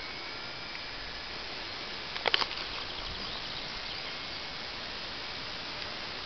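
Faint whine of a ParkZone T-28 Trojan RC plane's electric motor and propeller in flight overhead, drifting slightly in pitch under a steady hiss. A brief cluster of sharp clicks about two seconds in.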